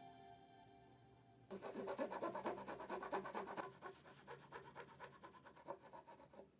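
A fading music chord, then a hand file rasping over metal in rapid, even strokes. It starts abruptly about a second and a half in and gradually quietens toward the end.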